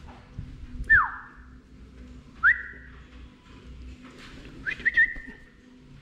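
Three loud, separate whistles. First comes a quick falling sweep, then a quick rise into a short held note, then a couple of fast rising notes that settle into a held note.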